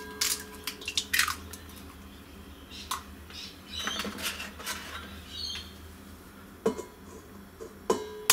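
Small silkie chicken eggs being tapped and cracked on the rim of a stainless steel mixing bowl: scattered sharp knocks, the bowl ringing briefly after the hardest ones near the end.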